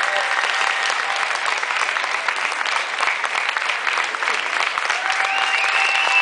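Audience applauding with steady clapping. A long held call rises over the clapping near the end.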